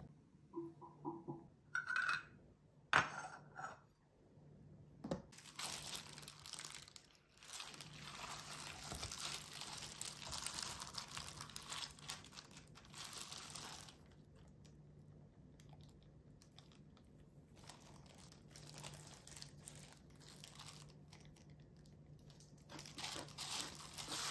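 Faint crinkling of a disposable plastic glove as a hand lifts soy-pickled onion slices out of a storage container. A few light porcelain clinks come in the first few seconds.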